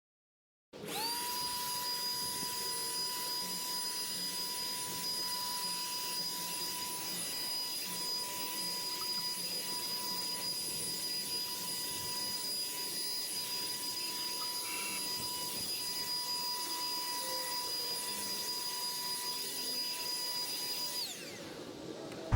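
Electric motor-driven fan, like a shop vacuum or blower, spinning up, running with a steady high whine over rushing air, then switched off about a second before the end and winding down in pitch.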